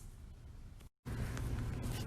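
Faint room tone, broken by a moment of total silence about a second in. After the silence comes a steady low hum with background noise.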